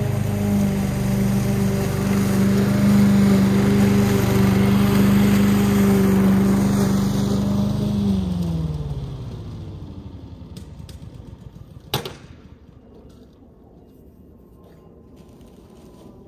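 Masport Contractor petrol lawn mower running steadily, then switched off about eight seconds in, its engine note falling in pitch as it winds down to a stop. A single sharp knock follows a few seconds later.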